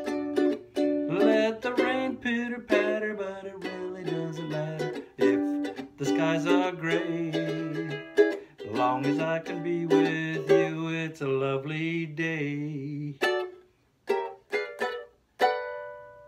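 Ukulele strummed in a steady rhythm, then slowing to a few separate strummed chords near the end, the last one left to ring as the song's ending.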